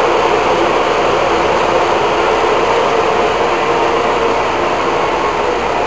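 Taiwan Railways EMU500 local electric train running alongside the platform, a steady, loud rumble of motors and wheels on the rails that eases off slightly near the end.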